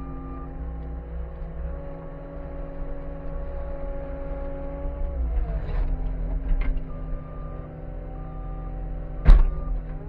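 Skid steer's engine and hydraulics running under load, heard from inside the cab. The hydraulic whine shifts in pitch about five seconds in as the grapple lifts. A single sharp metal clank comes near the end.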